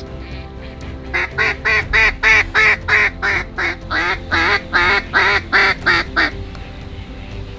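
Mallard quacks in a long, fast run of about three a second, starting about a second in and stopping near six seconds, over faint steady background tones.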